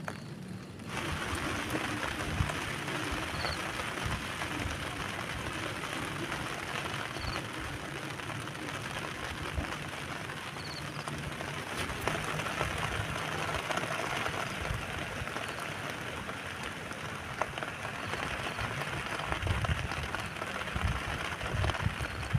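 Steady rain falling, starting abruptly about a second in, with a few low thuds near the end.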